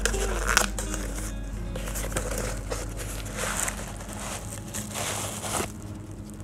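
Paper and bubble-wrap packaging crinkling and rustling in irregular bursts as a small item is unwrapped by hand.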